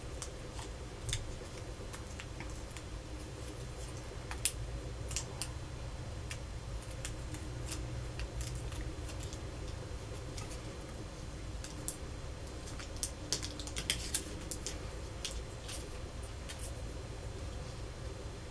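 Light clicks, ticks and rustles of paper and plastic backing being handled as a glue dot is peeled off and pressed onto a paper card, scattered and irregular with a small cluster about two-thirds of the way through, over a faint steady hum.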